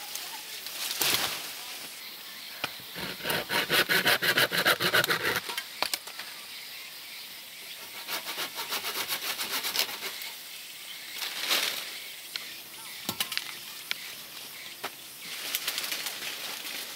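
Hand pruning saw cutting through a tree branch in quick, even strokes: a loud run of strokes, then a fainter run. Then come rustling swishes of leaves as cut branches come down, and near the end the rustle of a leafy branch being dragged.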